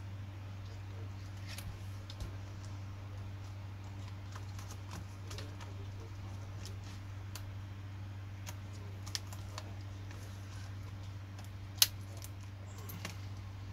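Scattered plastic clicks of a laptop keyboard and its keys as a replacement keyboard is pressed down into a Dell Latitude E7440's palmrest, with one sharp, loud click about twelve seconds in. A steady low hum runs underneath.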